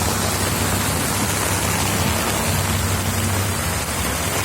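Heavy rain falling steadily, an even hiss of downpour with a low steady rumble underneath.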